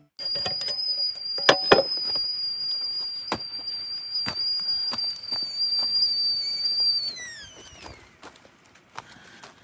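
A high, steady whistle that holds for about seven seconds, then slides down in pitch and fades, with scattered sharp clicks and knocks around it.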